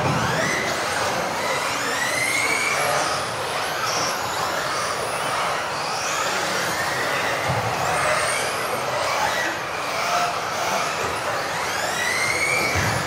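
Several radio-controlled off-road buggies of the modified (brushless electric) class racing together, their motors and drivetrains whining in many overlapping rising and falling pitches as they speed up and slow down, over a steady hiss.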